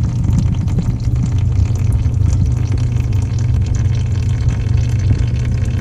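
Engine oil trickling from the drain plug hole into a plastic drain pan over a steady low rumble. It is only a thin flow, barely any oil coming out, which the owner takes as a bad sign.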